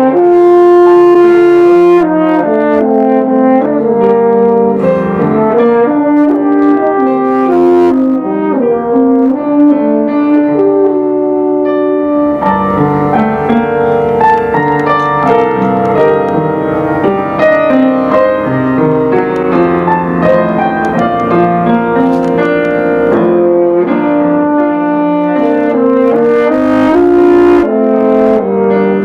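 Live trio of French horn, euphonium and upright piano playing an instrumental piece. Held brass notes sound over piano accompaniment.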